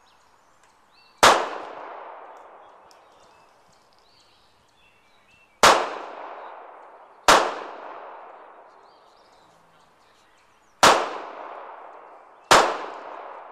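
Five handgun shots fired one at a time at an uneven pace, some about four seconds apart and some under two. Each is a sharp crack followed by a long echoing decay.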